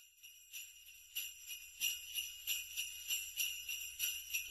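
Jingle bells shaken in a steady rhythm, about three shakes a second, growing louder.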